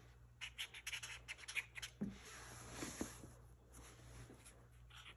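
Black marker drawing on corrugated cardboard: a quick run of short scratchy strokes in the first two seconds, then a few softer ones.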